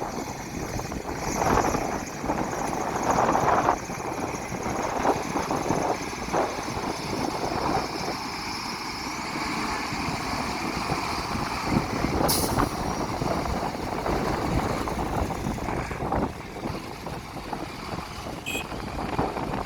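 Heavy trucks and earthmoving machinery running steadily, with a short hiss about twelve seconds in.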